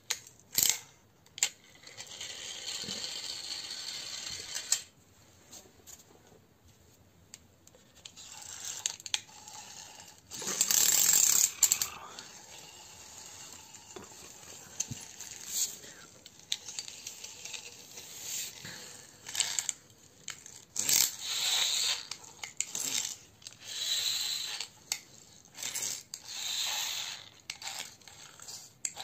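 Small plastic toy car pushed along a hard floor: several short runs of wheels rolling and rattling, with sharp plastic clicks between them.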